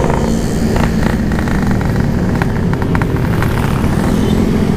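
Yamaha RX-King's 135cc single-cylinder two-stroke engine running steadily at low revs through an aftermarket PK3 expansion exhaust while riding.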